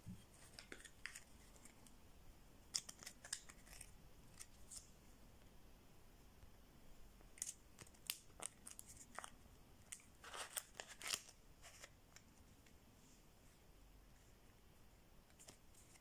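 Faint metallic clicks and scrapes of a small all-metal folding money-clip knife being handled, with paper banknotes rustling as they are pushed under the clip, in scattered short clusters.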